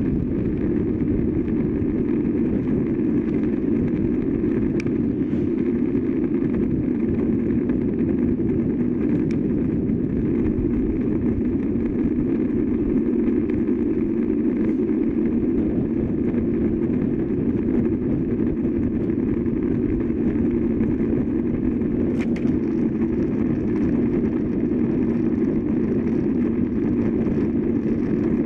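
Steady rush of wind over a bike-mounted camera and road-bike tyres rolling on asphalt, a dull even noise that does not change.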